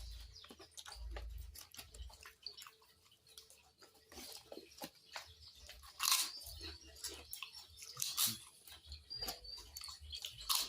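Close-up mouth sounds of a person chewing and biting ketupat rice cake with sauce: a stream of small wet clicks and smacks, with two louder sharp crunching or clinking sounds about six and eight seconds in.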